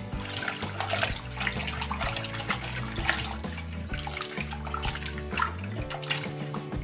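Hands washing cut pieces of tapioca in a steel bowl of water, with irregular splashing and sloshing, over background music.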